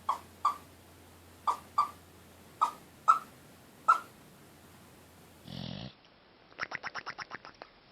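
A sleeping, dreaming dog giving short high yips: seven over about four seconds, some in quick pairs. After a cut there is a brief rush of noise, then a fast run of about a dozen short yelps.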